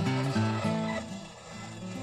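Background acoustic guitar music that dips briefly in level about halfway through.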